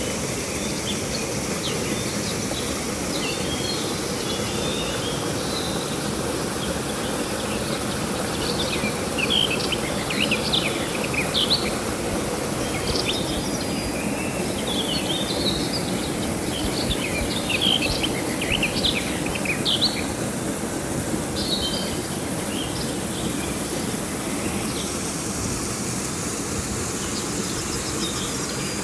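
River water flowing steadily, with birds chirping on and off, most busily in the middle stretch, over a constant high insect buzz.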